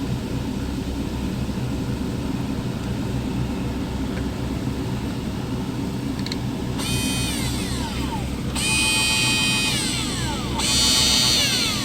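Small motor of a mini grinder run in short bursts over a steady low rumble: three times in the second half a high whine holds steady, then falls in pitch as the motor spins down after switch-off.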